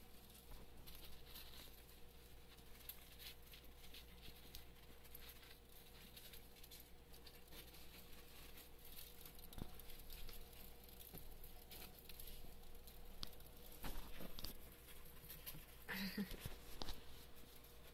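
Faint rustling, clicking and crunching of Roborovski dwarf hamsters cracking seeds at their food bowl and scurrying through shaving bedding. Several louder knocks and rustles come near the end.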